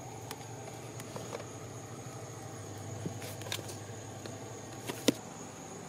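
Paperback books being handled on a wooden shelf: scattered soft taps and clicks over a steady low hum, with one sharp knock about five seconds in.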